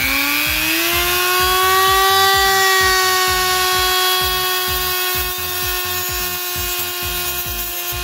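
Small electric rotary tool (mini drill) running: its whine climbs in pitch over the first second or so as it comes up to speed, then holds steady.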